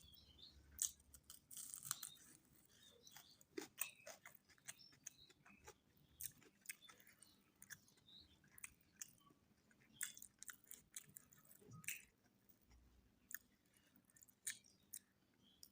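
Close-up chewing of a mouthful of mutton biryani: irregular wet mouth clicks and smacks with an occasional crunch, faint overall.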